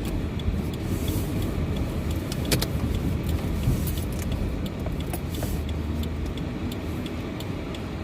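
Steady low rumble of a car running, heard from inside, with scattered light clicks and ticks.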